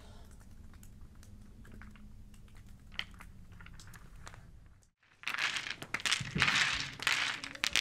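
Faint room tone with a few small clicks. About five seconds in, after a brief silence, comes loud clattering and crunching of black pebbles shifting against one another as they are pushed by hand across the floor.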